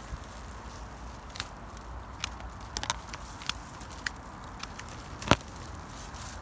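Irregular light clicks and crackles of dry rose canes and twigs being moved through, with one much louder snap about five seconds in.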